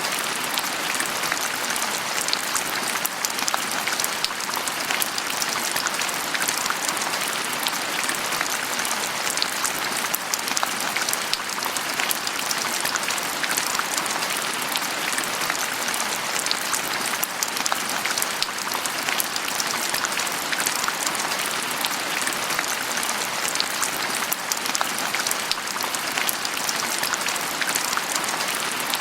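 Steady rain falling, an even patter of many fine drops.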